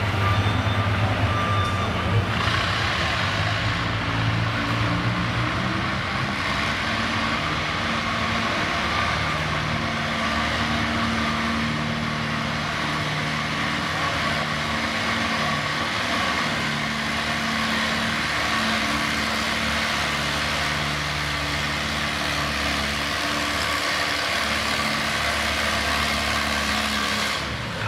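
Classic farm tractor engine under full load dragging a weight-transfer pulling sled, running steadily with its pitch stepping up and down as the load builds. An electronic beeping tone sounds for the first two seconds, and the engine opens up with a wide, hissing roar about two seconds in.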